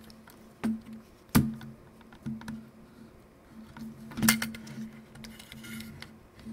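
Plastic casing of a Nikon One Touch L35AF2 camera clicking and knocking as it is handled and pried apart: a few sharp clicks, the loudest about a second and a half in and about four seconds in. A brief faint scrape follows near the end.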